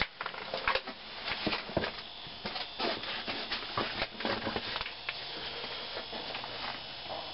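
Irregular footsteps and scuffs on a stone cave floor, thickest in the first few seconds and then thinning out to a steady hiss.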